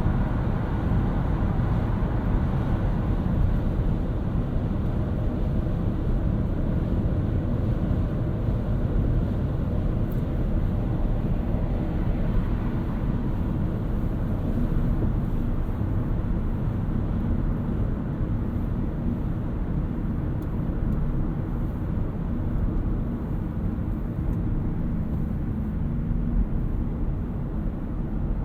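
2018 Toyota Auris Touring Sports 1.8 Hybrid driving along: a steady, mostly low rumble of road and drive noise.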